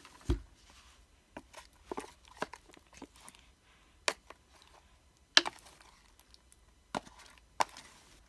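Slime being mixed after more slime activator is added: a low thump just after the start, then irregular sharp clicks and taps of handling and stirring.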